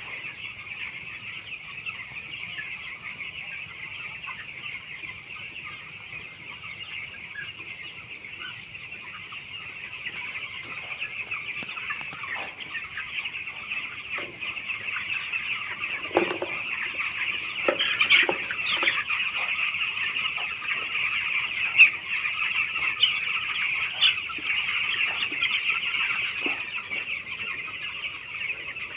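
A large flock of 13-day-old chicks peeping and chirping densely and without a break, growing louder about a third of the way in.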